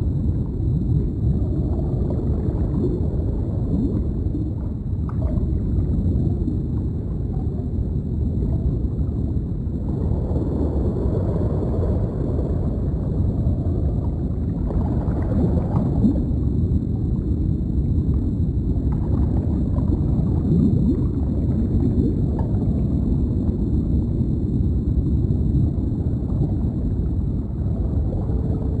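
Deep underwater ambience: a steady low wash of water with bubbling and gurgling that swells a few times. A faint steady high tone sits above it throughout.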